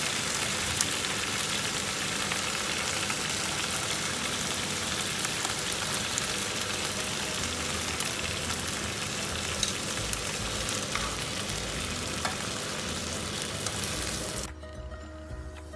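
Kailan and garlic stir-frying in hot olive oil: a steady sizzle with a few sharp clicks. It cuts off suddenly near the end, leaving a quieter sound with steady low tones.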